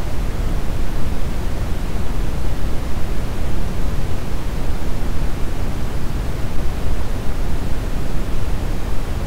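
Steady brown noise: an even, deep hiss strongest in the low end and fading toward the highs, with no change.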